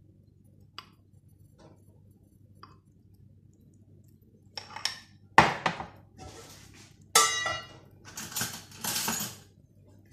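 A spoon knocking and scraping against a metal pan while sauce is spread over rice: a few faint taps at first, then several sharp clanks from about halfway through, one with a short metallic ring, and scraping near the end.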